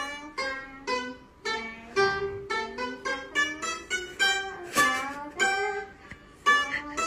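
Chinese plucked lute played as a slow melody: single notes plucked about twice a second, each ringing and fading, some bending slightly in pitch, with a short pause near the end.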